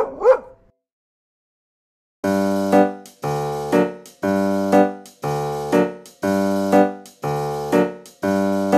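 Background music: an electric piano playing a repeated chord pattern, about one chord a second. It starts about two seconds in, after two short sounds at the very start.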